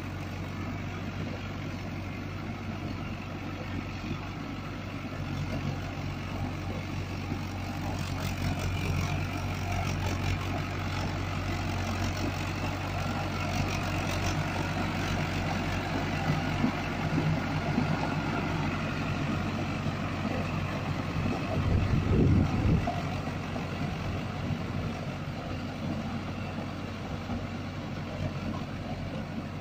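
Mahindra Arjun 555 DI tractor's four-cylinder diesel engine running steadily under load as it pulls a rotary tiller through wet paddy mud. It grows louder through the middle as the tractor passes close. About three-quarters of the way in there is a brief, louder low rumble.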